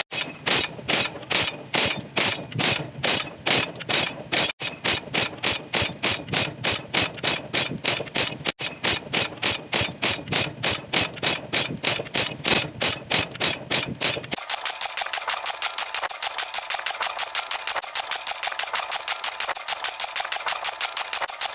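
Pile driver hammering: a steady run of heavy pounding strokes that gradually quicken. About two-thirds of the way in, the sound turns thin and much faster, a rapid rattle with the low thump gone.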